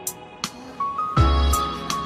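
Background music: a melodic track with sustained notes, a short stepping melody, crisp percussion hits and a deep kick drum about a second in.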